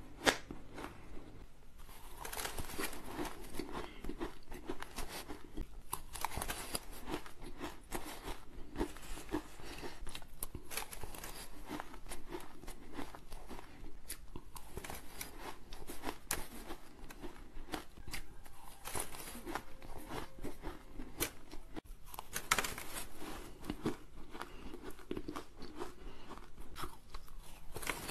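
Close-up crunching and chewing of mouthfuls of shaved ice, a dense run of small crackles that goes on with every spoonful.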